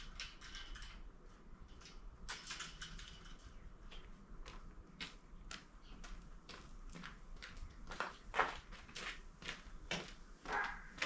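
Irregular light clicks and taps, scattered and sparse, with a few louder ones near the end.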